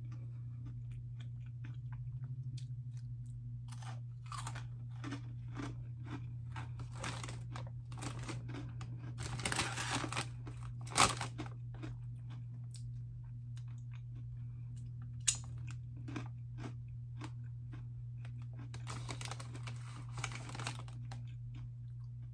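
Close-mouthed crunching and chewing of thick, hard Cheetos pretzels: a long run of crisp crunches with a few sharper cracks, over a steady low hum. Two rustling stretches, about nine seconds in and again near the end, fit the foil snack bag being handled.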